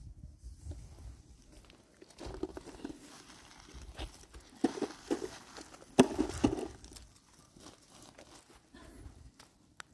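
Crackling, rustling handling noise with scattered sharp clicks and knocks; the loudest bursts come about five and six seconds in.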